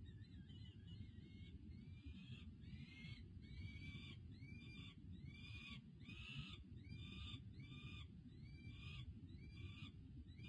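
Juvenile peregrine falcons giving faint, repeated begging calls, a hooked wailing note about every two-thirds of a second, while being fed prey at the nest ledge. A steady low rumble runs underneath.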